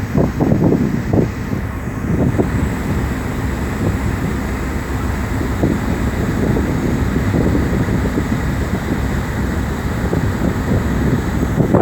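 Wind buffeting the microphone over a steady low rumble aboard a moving boat, with gusty flutter throughout.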